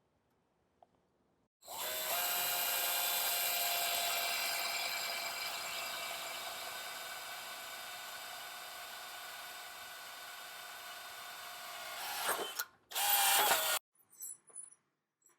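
Power drill boring a hole through the 2x2 mounting angle: a steady whine for about ten seconds, then a brief pause and a short second burst before it stops.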